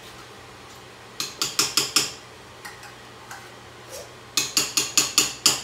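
Two quick runs of sharp metal taps on the rim of a stainless steel stockpot, about five strikes a second: five taps about a second in, then six more near the end.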